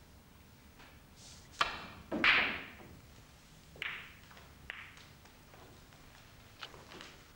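Snooker balls clacking: a sharp click of cue on cue ball, then a louder clatter about two seconds in as the cue ball hits the pack of reds, followed by a few fainter single clicks as scattered balls knock together and off the cushions.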